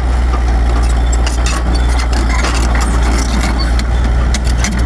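Komatsu PC78UU mini excavator's diesel engine running steadily, with scattered light clicks and knocks over it.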